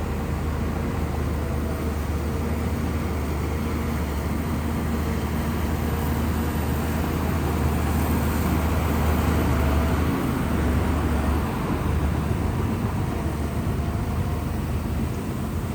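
Shantui bulldozer's diesel engine running with a steady low rumble, a little louder about eight to ten seconds in.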